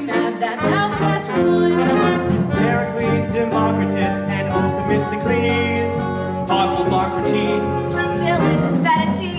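Musical-theatre pit band playing a show tune.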